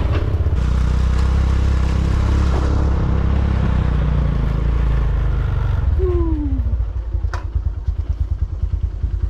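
Dirt bike engine running under load, then about two-thirds of the way through it drops to a slower, evenly pulsing putter. A short falling squeal and a sharp click come as it slows.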